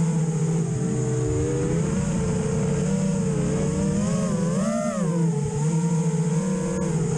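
FPV racing quadcopter's brushless motors and propellers whining in flight, the pitch rising and falling with the throttle. A sharp throttle punch about five seconds in sends the whine up, then it drops back.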